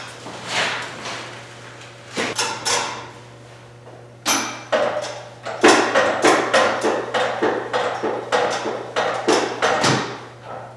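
Sharp knocks and clanks from hand work on a heavy machine frame: a few scattered strikes, then from about halfway a quick run of about three a second that stops shortly before the end.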